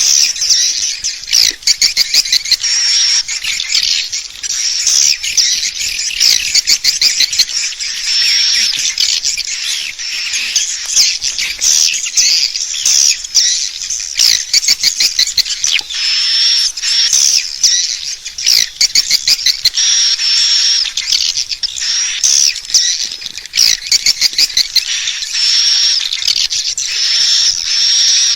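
Edible-nest swiftlet calling sound, the lure played to draw swiftlets into a nesting house: a dense, unbroken chorus of high chirps and fast twittering trills.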